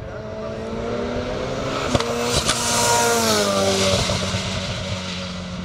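Hill-climb race car accelerating hard past the camera. Its engine note climbs as it approaches, then drops as it goes by and pulls away. Two sharp cracks come about two seconds in.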